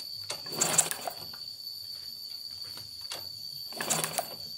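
Honda Revo single-cylinder engine being kicked over for a spark check: two short bursts of rapid mechanical clicking, about half a second in and again near the end. A steady high whine runs underneath.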